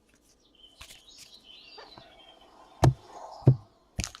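Baseball trading cards being handled on a table: faint rustling, then two sharp taps about three seconds in and a third near the end, with a brief high squeak or chirp in the middle.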